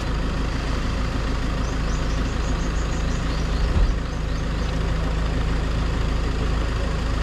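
Motorbike engine running steadily, with a brief thump about four seconds in.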